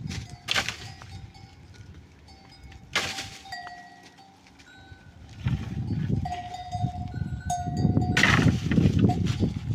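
Small neck bells on grazing goats or sheep clinking now and then, with a few sharp knocks. From about halfway through, a louder rough rustling joins in.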